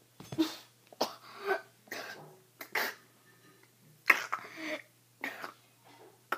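A boy coughing in a fit of about ten short, harsh coughs, the first ones behind his hand, after a spoonful of dry ground cinnamon has caught in his throat. The loudest cough comes about four seconds in.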